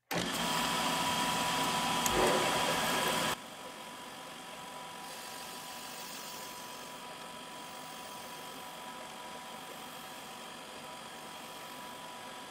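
Small OD grinder grinding the outside of a hardened steel bearing inner race, taking about two thousandths off to bring it toward finish size: a steady grinding hiss with a high, steady whine. It is loud for the first three seconds or so, then drops suddenly to a quieter, steady run.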